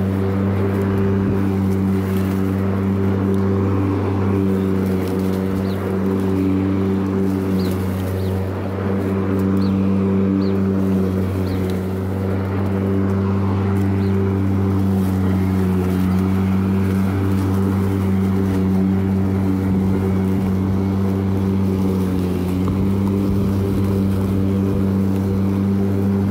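EGO LM19 47 cm cordless battery lawnmower running steadily while cutting grass, a constant low electric-motor hum that holds one pitch throughout.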